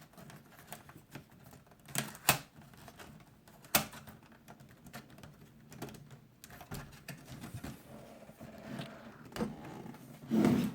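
Plastic clips of a Lenovo T400 laptop's touchpad cover clicking and snapping as the cover is pried away from the chassis, with lighter taps and handling noise in between. Two sharp clicks come about two seconds in and another near four seconds.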